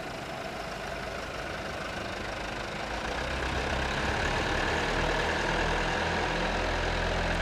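Engine of a loading machine working a grain bucket, running steadily and growing louder about three seconds in.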